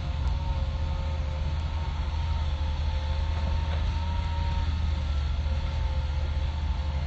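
Hitachi hydraulic excavator's diesel engine running steadily, a deep rumble with a faint, slightly wavering whine above it.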